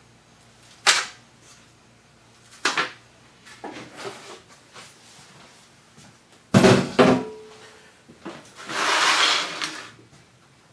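Kitchen handling sounds: a few sharp crinkles and clicks from an aluminium foil tray as floured cutlets are laid into it, then a burst of knocks and clatter about six and a half seconds in, followed by an even hiss lasting about two seconds near the end.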